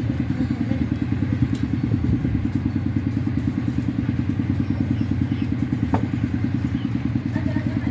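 An engine running steadily at a constant speed, a fast, even low throb, with a single sharp click about six seconds in.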